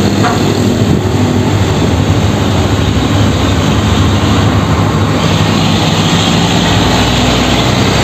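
Heavy container truck's diesel engine running loudly and steadily as the tractor unit pulls a shipping-container semi-trailer past.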